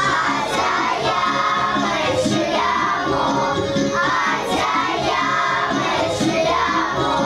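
A group of young children singing a song together in unison, with instrumental accompaniment.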